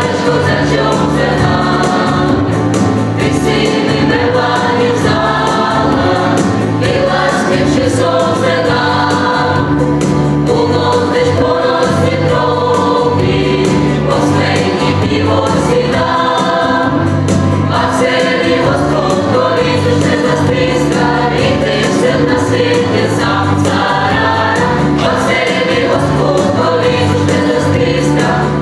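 Mixed choir of men and women singing together, with a steady bass accompaniment moving in steps underneath.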